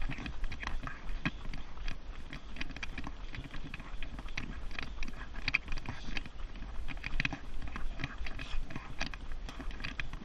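Thule running stroller pushed at a run along a paved path, heard from a camera on the stroller: a steady low rumble with a quick, irregular stream of clicks and knocks from the wheels and frame.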